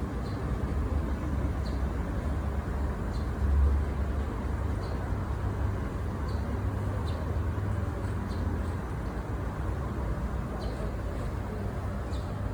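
Steady low outdoor rumble, like distant city traffic, with faint short high chirps repeating about every second and a half.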